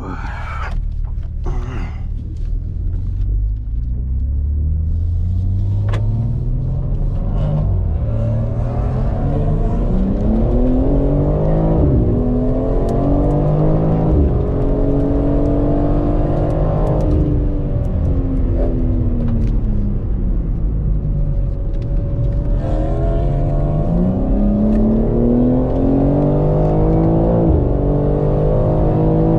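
BMW M3 Competition (G80) twin-turbo inline-six heard from inside the cabin, accelerating hard: the engine note climbs through the revs, drops back in the middle, then climbs again near the end.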